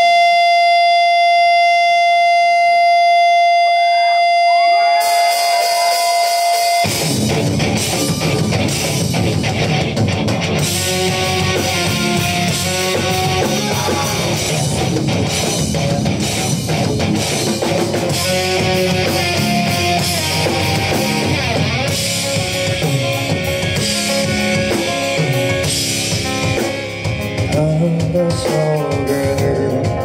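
Live rock band starting a song. A steady held tone with several fixed pitches sounds for about seven seconds, then electric guitars, electric bass and a drum kit all come in loudly together and play on without vocals.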